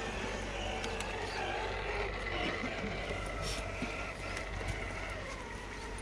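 Radio-controlled scale rock crawler's small electric motor and gearbox whining as it crawls, several tones drifting slightly up and down with the throttle.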